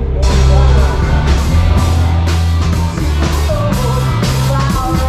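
Rock music from a live band, with a steady, driving drum beat and heavy bass.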